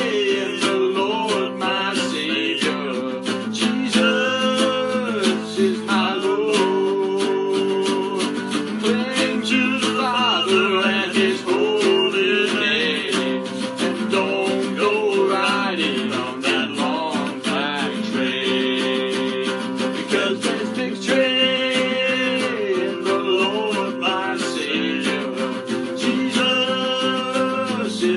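Instrumental passage of a gospel song: acoustic guitar strummed steadily, with a wavering, pitch-bending lead melody line over it.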